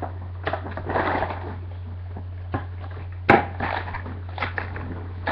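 Plastic blister packaging of a Beyblade top being handled and pulled open: rustling and crinkling, with a sharp snap about three seconds in, over a steady low hum.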